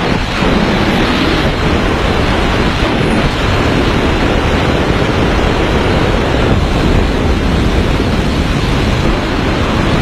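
Loud, steady rush of wind buffeting a camera microphone carried by a wingsuit pilot in flight.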